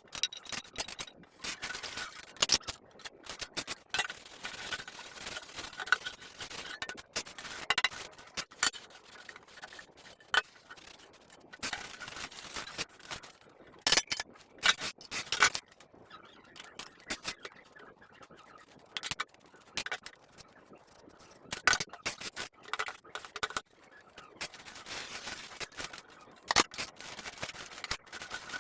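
Kitchen utensils and dishes being handled: irregular clicks, knocks and clinks with short stretches of scraping.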